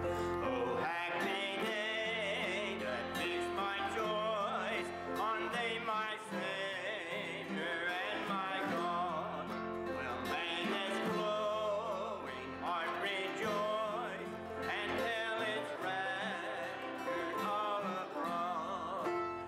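A hymn sung by a group of voices, accompanied by mandolin and electric guitar in a bluegrass style.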